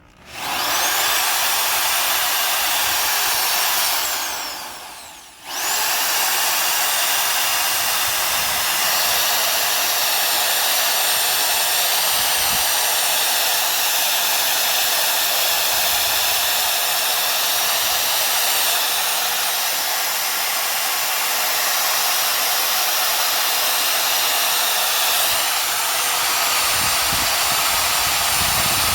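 Power drill running under load, drilling out an old leaf-spring bushing. It spins up, stops briefly about four seconds in, then restarts and runs steadily for the rest of the time with a high-pitched whine.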